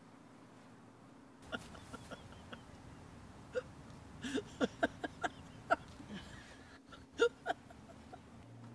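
A string of short, sharp nonverbal vocal sounds, brief catches of breath with a little pitched voice in them, about a dozen starting about a second and a half in and stopping near the end, over a faint steady hum.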